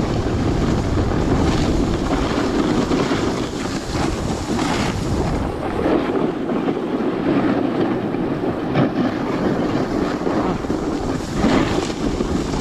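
Wind buffeting the microphone over the hiss and scrape of a snowboard sliding down packed snow, with a few brief, sharper scrapes.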